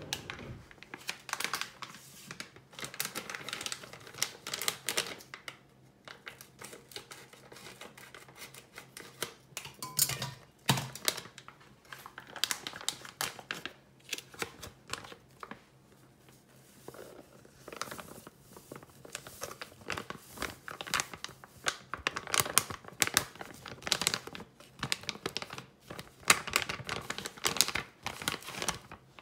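Crinkly flour packet rustling and crackling in irregular bursts as it is opened and handled, its flour emptied into a nonstick pot.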